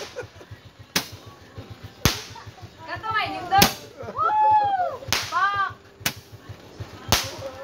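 Consumer fireworks going off: a string of sharp bangs about a second apart, with high rising-and-falling calls between them in the middle.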